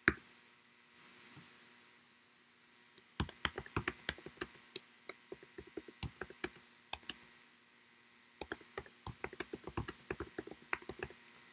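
Typing on a computer keyboard: a single click at the start, then a fast run of key clicks, a short pause, and another run of key clicks.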